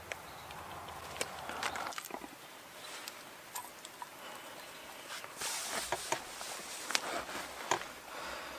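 Light handling noises of a raw lamb joint and chopped onion being placed into a cast-iron Dutch oven: soft rustling with scattered small clicks and taps.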